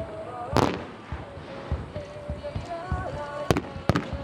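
Aerial fireworks shells bursting: one loud bang about half a second in, then a quick run of sharper cracks near the end, with faint music playing underneath.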